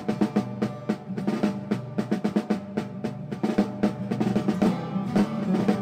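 Instrumental break in a folk-style song: rapid snare drumming and drum rolls over held instrument notes, with no singing.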